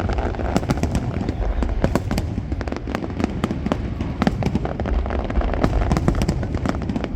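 Fireworks display: a rapid, dense crackle of many sharp bangs and pops every second over a continuous low rumble of booming shells.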